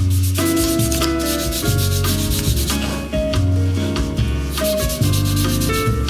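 Rasping rub of abrasive paper sanding the edge of vegetable-tanned leather, over instrumental background music with a steady bass line.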